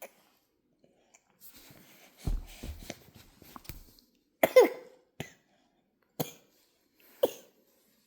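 A baby coughing, with one loud cough about halfway through and three shorter coughs about a second apart after it. The coughing comes from laughing while drinking formula. Soft rustling and a few low knocks come before it.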